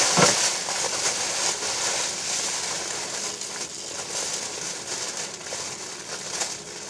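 Clear plastic oven bag crinkling and rustling as it is gathered and twisted closed by hand, after a short thump at the very start.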